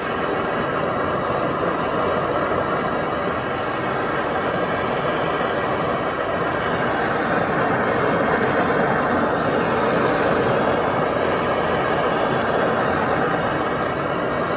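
Hand-held gas torch flame burning with a steady rushing noise, preheating an aluminum part to drive off surface condensation before TIG welding.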